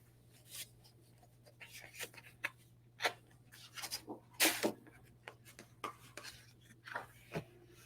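Paper, card and plastic packaging handled by hand: irregular short rustles, scrapes and light taps as trading cards and comic books are slid out and laid down, the loudest about three and four and a half seconds in.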